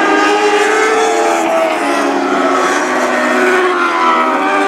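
Several Lightning Sprint race cars' high-revving motorcycle engines racing past on a dirt oval, their overlapping pitches rising and falling as they drive through the turns.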